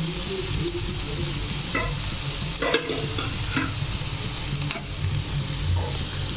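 Chopped onions, green chillies and curry leaves sizzling steadily in hot oil in a pan. A few short clicks come from a spatula stirring them against the pan.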